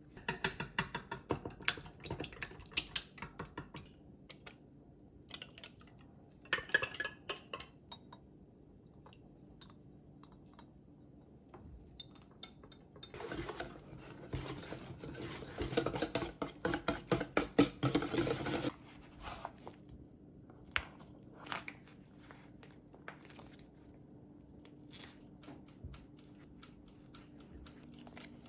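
Kitchen handling sounds: scattered clinks and taps of utensils and dishes, with about five seconds of rapid, dense scraping strokes around the middle.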